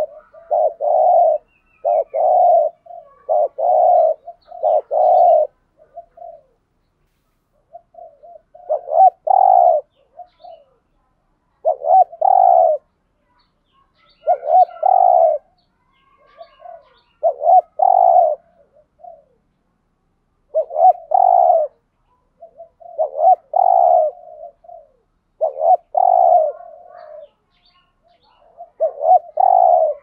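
Spotted dove cooing in repeated phrases of several short, low coos. The phrases come back-to-back at first, then follow each other every two to three seconds with pauses between them.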